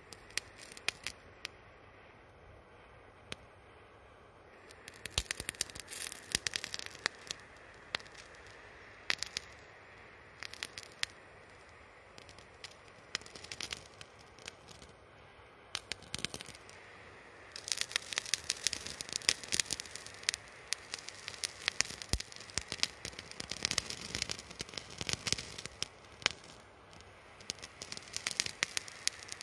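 Wood fire crackling with irregular sharp pops, sparse at first and growing much busier a little past halfway.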